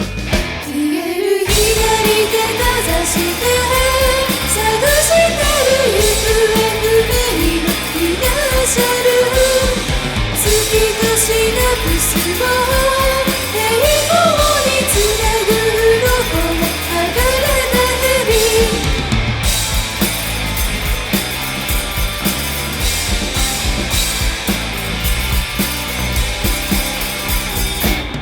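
A four-piece rock band playing an original song: drum kit, guitar and a wavering lead melody line. The band drops out for a moment about a second in, then comes back in full.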